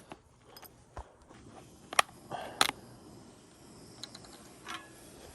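A few sharp clicks and knocks with a short scraping rustle between the two loudest, from handling a bottle of vegetable oil that has frozen solid.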